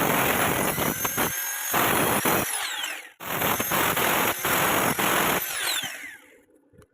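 Handheld power tool running loud and gritty in long stretches. It cuts out briefly twice and winds down with a falling whine before stopping near the end.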